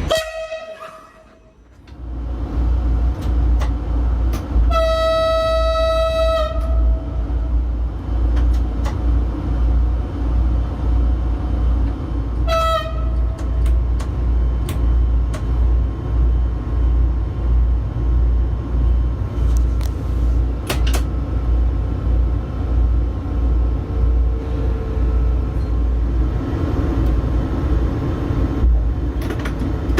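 A train running with a steady low rumble and a regular low pulse, its horn sounding one long single-note blast about five seconds in and a short toot a few seconds later.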